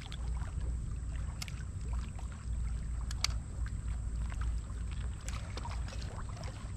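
Hooked blue catfish splashing and sloshing in shallow water at the river's edge, over a steady low rumble. A few sharp clicks, the loudest about three seconds in.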